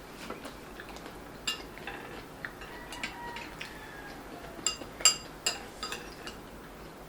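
Cutlery clinking and scraping against plates and bowls during eating: a string of sharp clinks with a brief ringing tone, loudest and most frequent about five seconds in.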